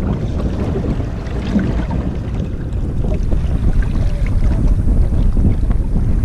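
Wind buffeting the microphone with water splashing against the hull of a small outrigger canoe moving through choppy sea.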